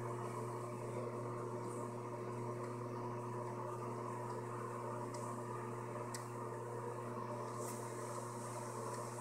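Steady low mechanical hum, like a running appliance or fan, with a few faint clicks partway through.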